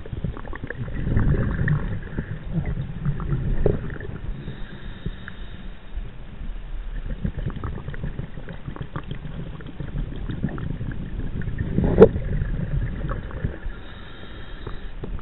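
Scuba diver's exhaled bubbles gurgling out of the regulator, heard underwater, in two spells about nine seconds apart over a steady low rumble. One sharp click sounds about twelve seconds in.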